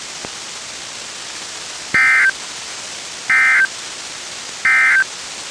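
Three short, identical bursts of SAME digital data tones on NOAA Weather Radio, about a third of a second each and spaced about 1.3 seconds apart, starting about two seconds in. They are the end-of-message code that closes the Required Weekly Test, heard over the radio's steady background hiss.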